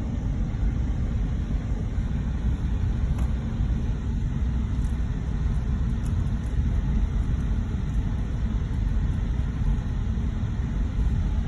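Steady low rumble of a car driving, with no change in pitch or level.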